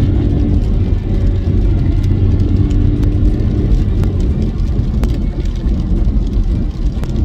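In-cabin engine and road noise of a VW Polo's 1.0-litre turbocharged three-cylinder while driving: a steady, loud drone with no clear rise in revs.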